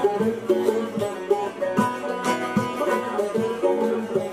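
Two long-necked lutes played together, a banjo-bodied saz and a saz (bağlama), picking a fast melody of quick plucked notes without singing.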